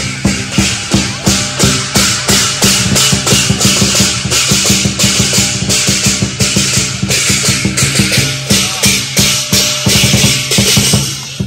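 Live Chinese lion dance music: a big lion dance drum beaten in a steady driving rhythm of about two strokes a second, with crashing cymbals and a gong.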